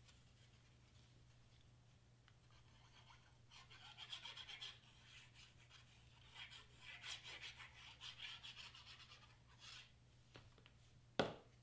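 Faint scratchy rubbing of a glue stick spread in quick strokes over the back of a cardstock piece, in two spells, then one sharp tap near the end.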